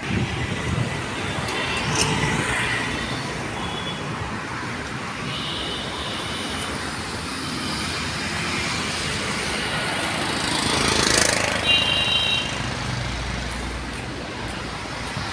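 Road traffic on a city main road: a steady rush of engines and tyres, with one vehicle passing close about ten to eleven seconds in. Short high-pitched tones sound a few times over it.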